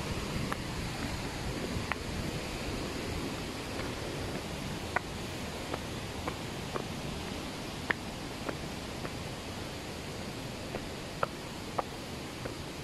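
Steady rushing noise of a waterfall, with short sharp clicks scattered through it about once a second.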